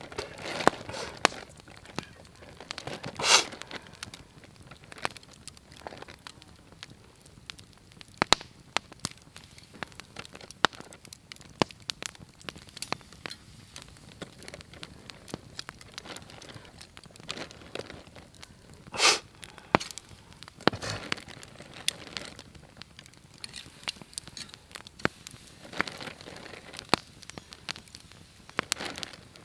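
Wood campfire crackling, with irregular sharp pops and snaps throughout. Twice, about 3 and 19 seconds in, there is a louder brief rushing noise.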